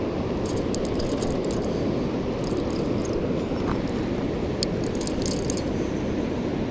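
Steady rushing roar of river water below a dam, with scattered light ticks over it.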